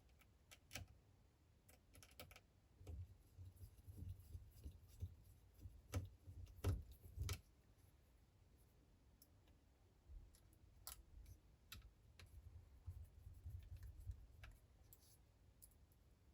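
Faint scattered clicks and taps of small tools and plastic parts as a smartphone is reassembled by hand, over low handling thumps. The sharpest clicks come about six to seven seconds in.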